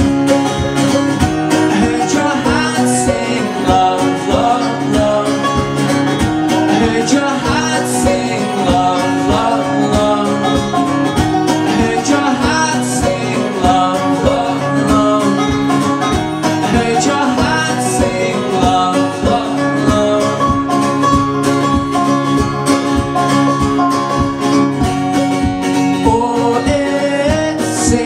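Live acoustic folk band: strummed acoustic guitar with banjo and mandolin, and a man singing the lead vocal over a steady beat.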